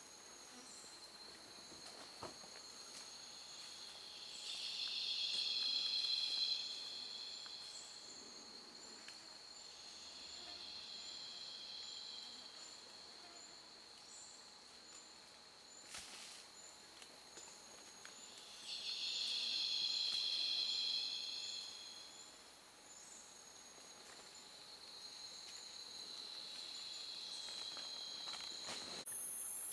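Rainforest insects calling: a steady high whine and rhythmic ticking, with a high buzzing chorus that swells up and dies away four times. A few faint snaps sound in between, and a sudden high hiss comes in near the end.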